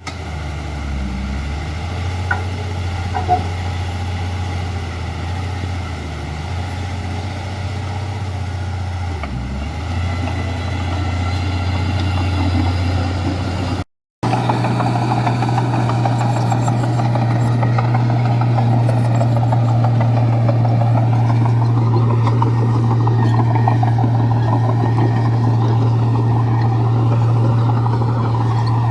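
Bulldozer's heavy diesel engine running steadily under load with a deep, even drone and some track and rock clatter. About halfway through the sound cuts out for a moment and resumes at a slightly higher pitch.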